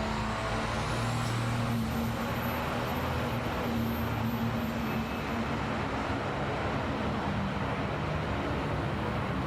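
An engine running steadily, a constant low hum under an even, continuous roar.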